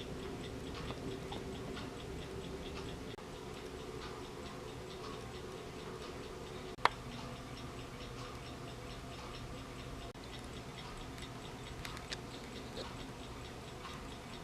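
Steady light ticking, about four ticks a second, over a low room hum, with one sharp click about seven seconds in.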